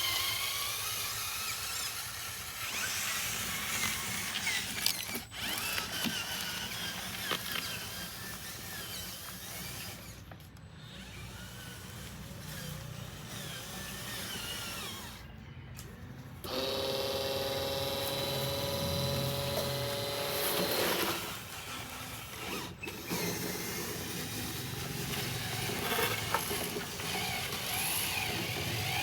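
Small electric motors and gearboxes of radio-controlled construction models whining and grinding as they work, with a steadier whine for a few seconds past the middle; the sound breaks off abruptly several times.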